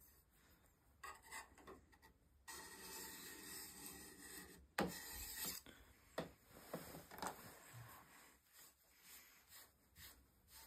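Faint scratchy rubbing of a diamond honing paddle stroked along the steel edge of a Stubai drawknife, removing the burr. It comes in several light strokes, one long one starting about two and a half seconds in, then shorter ones fading out.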